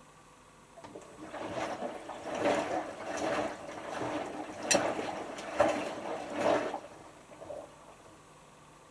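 Hotpoint HF8B593 washing machine in its synthetics rinse, water sloshing in the drum for about six seconds in a series of surges, with a sharp click in the middle, then stopping.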